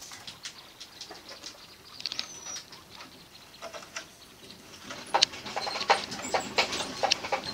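Degus moving about a cage make irregular small clicks and scrabbling. There is a short high squeak about two seconds in. The clicks come thicker and louder over the last few seconds, mixed with quick high chirps.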